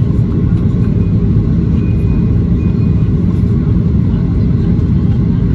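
Steady low rumble inside the cabin of a Boeing 737-800: its CFM56-7B turbofan engines and the airflow over the airframe. The aircraft is descending on approach with its flaps extended.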